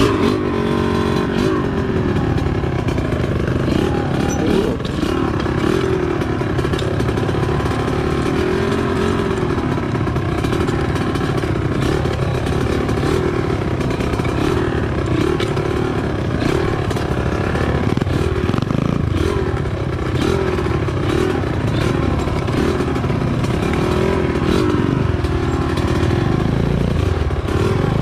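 Small motorcycle engine running and revving up and down as the vehicle is driven over rough ground, with scattered rattles and knocks.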